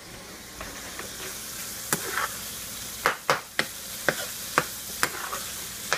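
Ground turkey sizzling in a frying pan. From about two seconds in, a utensil stirring it clacks sharply against the pan every half second or so.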